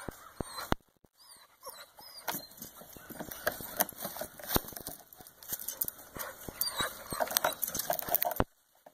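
Two dogs, a West Highland white terrier and a beagle-rottweiler mix, sniffing and pawing around a log while hunting a chipmunk: many quick clicks and rustles. The sound cuts off suddenly near the end.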